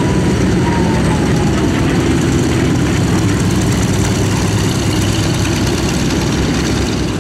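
Twin radial piston engines of a Douglas A-26 Invader running at low taxi power as the bomber rolls past: a loud, steady low rumble.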